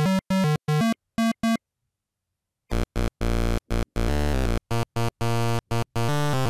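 8-bit chiptune-style synthesizer music in short, evenly cut square-wave notes. It stops about one and a half seconds in, and after a second of silence a new, lower-pitched phrase with deep bass notes begins.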